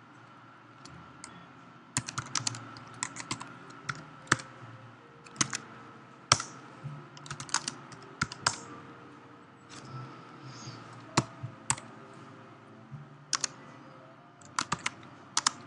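Computer keyboard typing in irregular bursts of keystrokes, with short pauses between them, over a faint steady hum.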